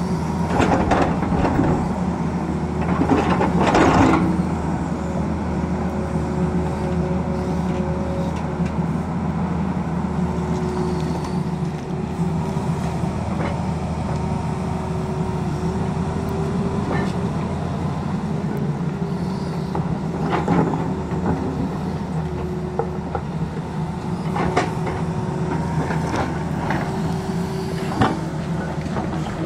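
Tata Hitachi hydraulic excavator working: its diesel engine and hydraulics run steadily, with a whine that comes and goes as the boom and bucket move. The bucket digs into rocky soil, with clattering and scraping of rock about three to four seconds in and several times in the last ten seconds.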